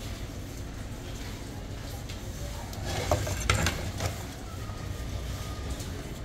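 A metal knife scraping and clinking against the inside of a clay pot as layered biryani rice is turned over, with a cluster of sharp scrapes about three seconds in, over a steady low rumble.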